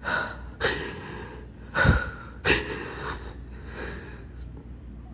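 Heavy, uneven breathing: about six short, loud breaths and sniffs in a few seconds, the strongest about two seconds in.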